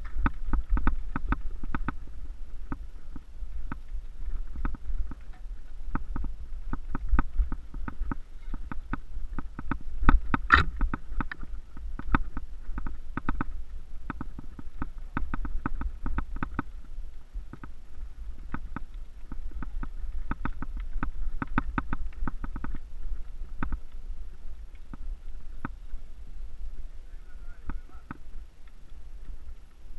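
Mountain bike jolting along a rough dirt singletrack: a dense run of clattering knocks and rattles over a steady low rumble, with one sharp, hard knock about ten seconds in.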